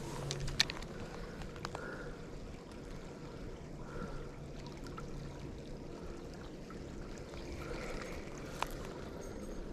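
Small creek water trickling steadily, with a few sharp clicks from the spinning reel being handled, the loudest about half a second in and another near the end.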